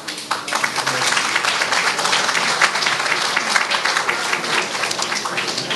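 Audience applauding: many hands clapping together, starting just after the opening and thinning out near the end.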